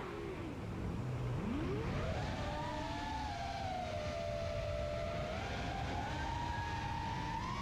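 FPV quadcopter's brushless motors and propellers whining, the pitch sinking low as throttle is cut about a second in, then climbing sharply as it is punched back up and holding, rising slightly again near the end.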